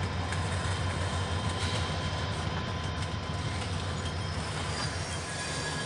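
BNSF double-stack intermodal container train rolling past: a steady rumble of steel wheels on rail.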